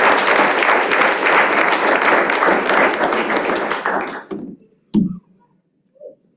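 Audience applauding, a dense patter of many hands clapping that dies away about four seconds in, followed about a second later by a single low thump.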